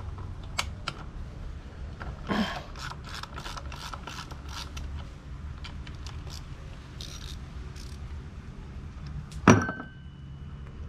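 Small hand ratchet clicking in short runs while backing out the bolts on an outboard's lower unit, with one sharp metal clank near the end.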